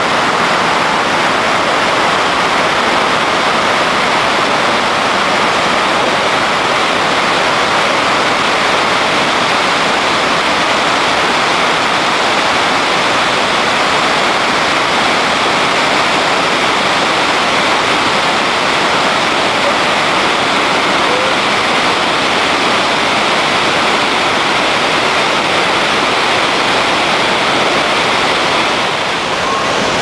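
Iguazu Falls at the Devil's Throat: a massive volume of water plunging over the brink, heard as a loud, steady, unbroken rush.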